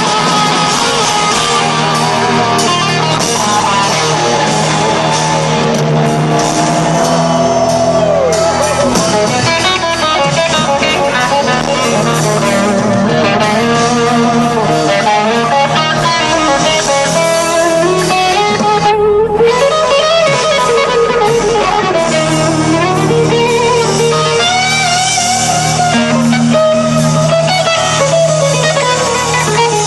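Live rock band playing at full volume: an electric guitar lead with notes that bend up and down over drums, bass and rhythm guitar, heard from the audience.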